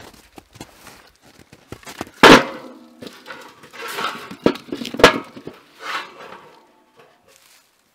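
Split firewood set down into a steel fire-pit bowl: a loud clang with a short metallic ring about two seconds in, then several more wooden knocks and clunks as the pieces are stacked.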